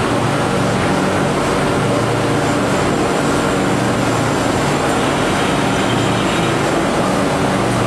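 Corrugated cardboard production line machinery running: a steady, even mechanical noise with a low hum and no separate knocks or clatter.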